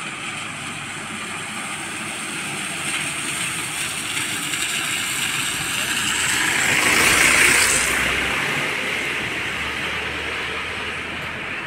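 A car driving past on a wet road: the hiss of its tyres swells to its loudest about two-thirds of the way through, then fades, over a steady background hiss.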